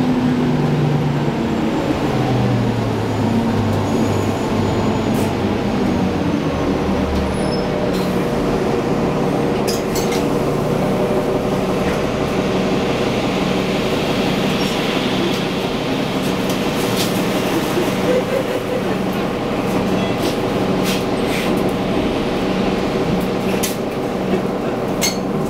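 Nova Bus LFS city bus heard from inside the cabin: engine and drivetrain dropping in pitch over the first several seconds as the bus slows, then running steadily, with scattered rattles and clicks from the body.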